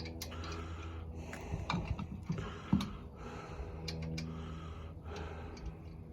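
Irregular light metallic clicks and taps as a spare wheel is pushed onto the hub and its lug nuts are started by hand on the studs, over a steady low hum.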